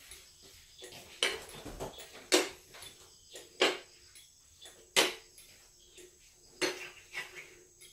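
Ground microphone of an acoustic water-leak detector being set down on ceramic floor tiles again and again, a sharp knock each time, about six knocks roughly a second apart, as the floor is sounded spot by spot for a hidden pipe leak.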